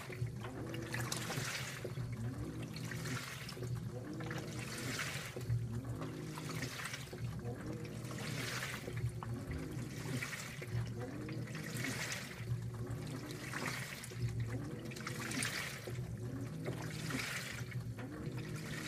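2012 LG top-load washer agitating a large load in its bloom wash action: water sloshes and churns in regular surges about every two seconds as the basket reverses. Each stroke carries a motor whine that rises and falls.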